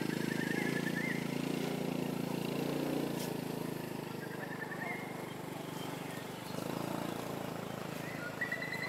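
A small engine running with a steady low hum, easing off after about three seconds and swelling again near seven seconds. Short, fast, high trills come over it about half a second in, about five seconds in and again near the end.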